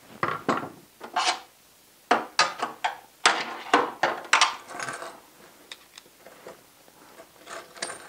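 Small metal clicks, taps and rattles of a BMW E46 door lock cylinder and its parts being worked by hand with a key and a screwdriver against a wooden bench, in quick clusters through the first five seconds, sparse after that, and picking up again near the end.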